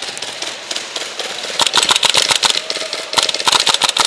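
Airsoft electric rifle firing on full auto: a fast mechanical rattle in two bursts, the first starting about one and a half seconds in and the second about three seconds in. Lighter rapid clicking of airsoft fire comes before them.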